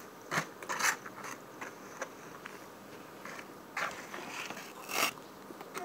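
Close-miked eating sounds: a handful of short, crisp chewing crunches, with a plastic fork scraping and tapping in a styrofoam takeout box as coleslaw is lifted out.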